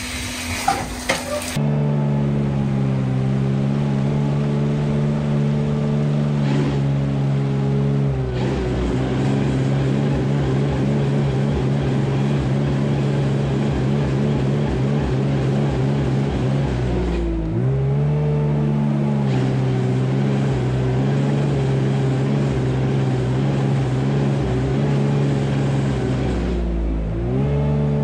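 Wheel loader's diesel engine running hard and steady while digging and loading manure. Its pitch sags briefly under load twice and picks back up. A short clatter comes first.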